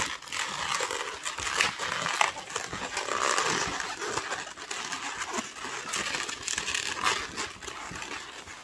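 Inflated latex 260 twisting balloons squeaking and rubbing against each other as they are twisted and squeezed by hand, in an irregular run of short squeaks.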